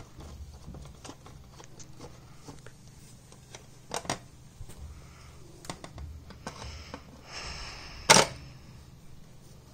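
Screwdriver working the small screws that hold a TV speaker in its plastic cabinet: light scattered clicks, a sharper double click about four seconds in, a brief scrape, then the loudest click just after eight seconds.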